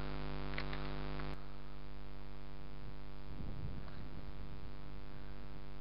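Steady electrical hum with a ladder of even overtones, with a single sharp click a little over a second in and a brief low rumble around the middle.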